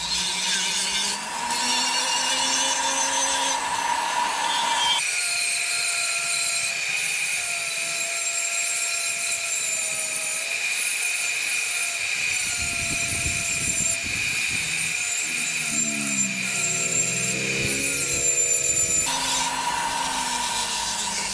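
Foredom flexible-shaft rotary tool running a sanding drum against a wooden fish carving, a steady motor whine with the rasp of abrasive on wood. The motor speeds up to a higher pitch about five seconds in and drops back down near the end.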